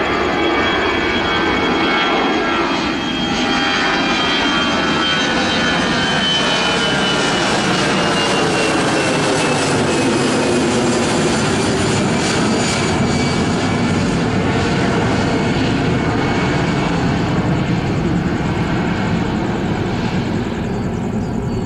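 Airbus A320-200 airliner's jet engines at take-off thrust as it climbs out overhead: a steady loud roar with a high whine that slowly falls in pitch over the first dozen seconds as the aircraft passes.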